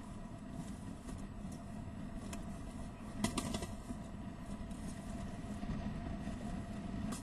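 Steady low rumbling noise with a faint electrical hum, with a brief cluster of clicks about three seconds in.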